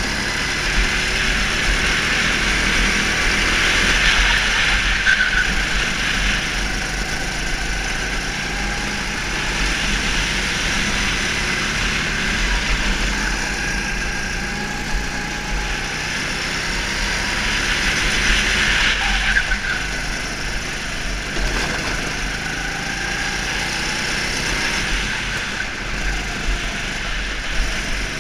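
Go-kart engine running at speed, heard from on board, its note swelling and easing several times with a steady low rumble underneath.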